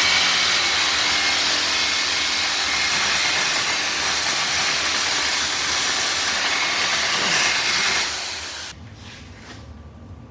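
Welding arc crackling and hissing steadily for about eight seconds, then stopping.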